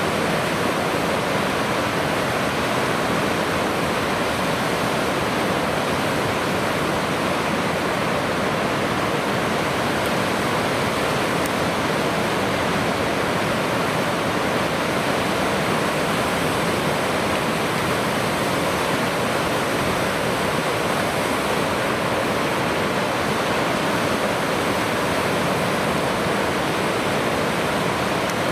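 Steady rushing of fast-flowing water, an even, unbroken wash of noise with no change in level.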